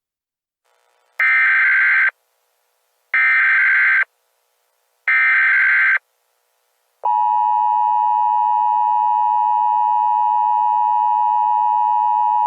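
Emergency Alert System alert tones. First come three one-second bursts of warbling digital SAME header data, about a second apart. A little over halfway through, the steady EAS attention tone begins and keeps sounding.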